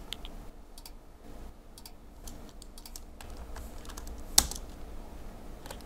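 Computer keyboard typing: scattered key clicks at an uneven pace, with one sharper, louder click about four and a half seconds in.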